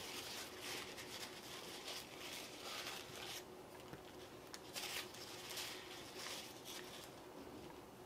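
Paper towel rustling and crinkling in a series of short bursts as washed strawberries are wiped dry by hand.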